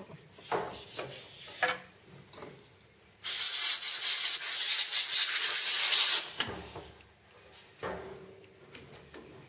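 Compressed-air blow gun hissing in one steady blast of about three seconds, clearing metal swarf off a freshly milled part, then cutting off sharply. A few light knocks of handling come before and after it.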